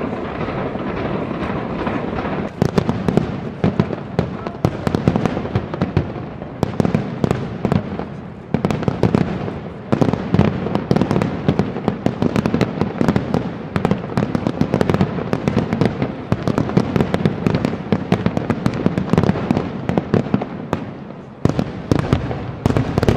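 Fireworks going off in quick succession: a dense, continuous run of bangs and crackles, easing briefly a few times.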